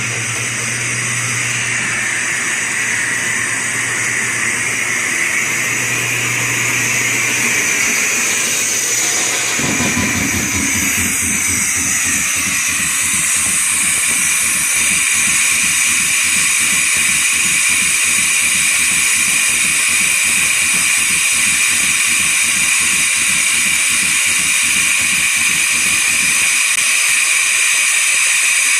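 Roberts air compressor running while compressed air hisses loudly and steadily out of the opened intercooler drain cock, venting clean air with no oil or moisture. About ten seconds in the hiss shifts higher, and the compressor's fast, even pulsing comes through underneath.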